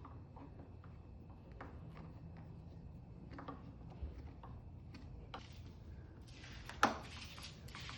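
Faint scattered clicks and taps of a hand screwdriver working the tail-light screws, with a sharper click about seven seconds in.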